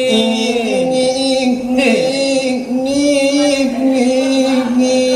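Selawat dulang singing: voices chanting Minangkabau verse in long held notes that bend and waver in ornamented slides.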